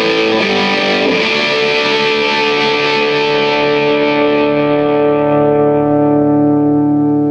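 Electric guitar through a Bogner Alchemist 2x12 tube combo amp, on a distorted tone: a few quick notes, then a chord struck and left to ring out for several seconds. The camcorder recording clips.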